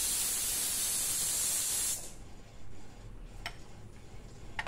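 A steady hiss that cuts off suddenly about two seconds in, followed by a few faint clinks of bowls being set on a serving plate.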